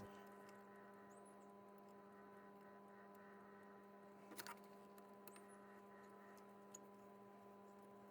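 Near silence: a steady electrical hum, with a couple of faint short clicks about four and a half seconds in.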